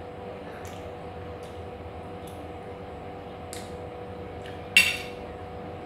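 A metal fork clinks once against a dish about five seconds in, with a short ringing tail, after a few faint small clicks. A steady low hum runs underneath.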